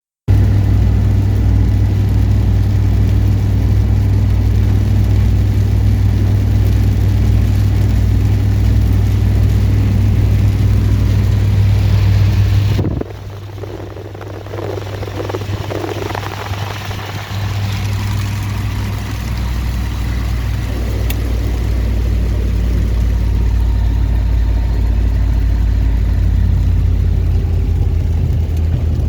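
Strong wind buffeting the microphone: a loud, deep rumble that drops off suddenly about halfway through, then builds back up.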